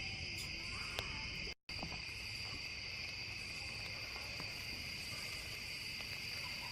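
Crickets chirping in a steady, even chorus, with a brief gap in the sound about a second and a half in.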